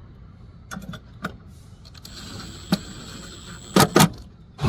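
The last mounting screw being put into an outdoor Wi-Fi access point's wall bracket: a few light metal clicks, a steady mechanical whir for under two seconds, then two sharp metal clicks near the end.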